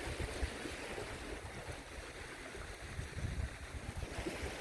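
Small waves washing onto a sandy beach, with wind buffeting the microphone in low rumbles.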